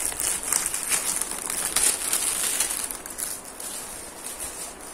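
Crinkling of thin plastic wrapping as it is pulled off a small cardboard box, a dense run of crackles that is busiest for the first three seconds and then dies away.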